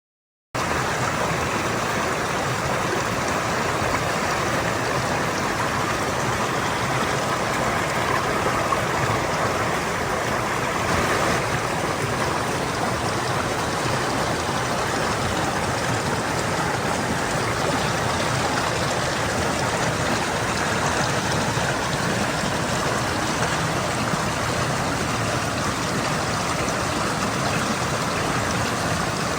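Stream water flowing and trickling over rocks: a steady, even rush that starts suddenly about half a second in.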